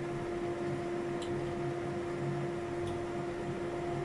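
Kitchen fan running with a steady, even hum and a constant low tone. Two faint clicks sound about a second in and near the three-second mark.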